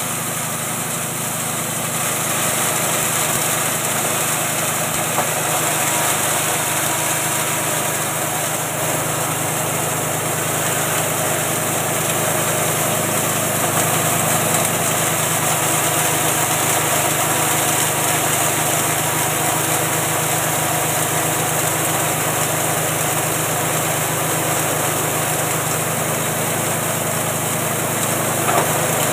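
Small 6.5 hp engine running steadily, driving a 3-in-1 feed machine set up as a grinding mill while material is fed by hand into its hopper. A single small knock near the end.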